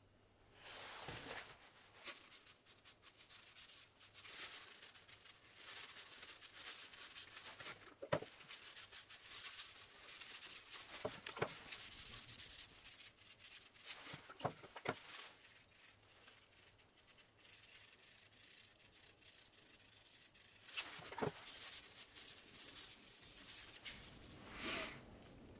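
Rag rubbing and rustling over a small turned wooden acorn as oil is wiped on by hand: faint, coming and going in strokes, with a few sharp clicks and taps in between.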